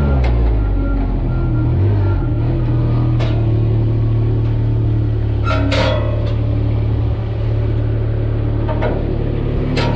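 A large engine running steadily at a low pitch, its pitch dropping and settling in the first two seconds, with several sharp metallic clanks or clicks over it.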